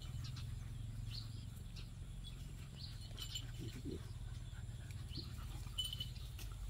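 Beagles play-wrestling on grass, with a few faint short yips and squeaks scattered through and a brief low growl-like sound midway, over a low steady rumble.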